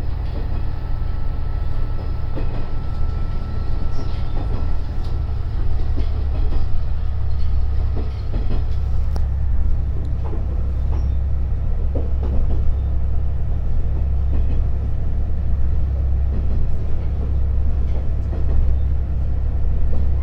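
Diesel railcar running along the track, heard from inside the car: a steady low rumble from the engine and running gear, with scattered clicks and knocks from the wheels and rails.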